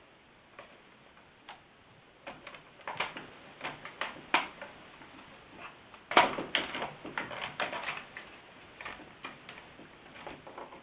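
Irregular clicks and light knocks of a chainsaw's plastic housing, screws and hand tools being handled during disassembly, with the busiest cluster a little past the middle.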